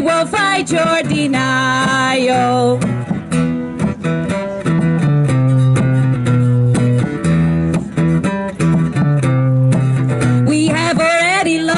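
Live acoustic guitar strummed in a steady rhythm under a woman's singing. She sings for the first few seconds, the guitar carries on alone through the middle, and her singing comes back near the end.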